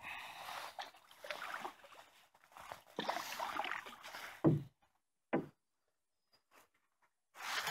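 Canoe being propelled through marsh water: water swishing and dripping with each stroke, with two short low thuds about four and a half and five and a half seconds in.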